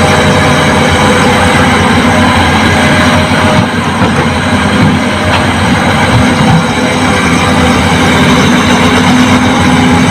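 Heavy construction machinery's diesel engine running steadily and loudly.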